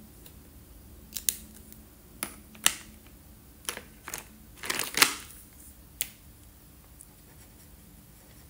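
Plastic felt-tip markers and their caps clicking and clacking as one marker is put back in its tray and another taken out. There are about ten sharp clicks between one and six seconds in, the loudest cluster about five seconds in.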